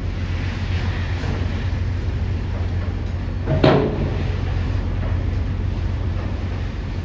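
Steady low engine rumble with wind noise, and one sharp metallic clank about three and a half seconds in.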